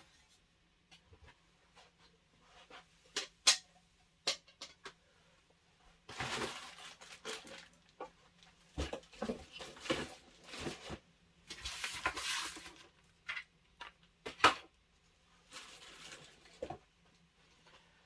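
Hard plastic and metal parts of a laser engraver kit handled on a desk: scattered sharp clicks and knocks as pieces are picked up and set down, with three stretches of rustling.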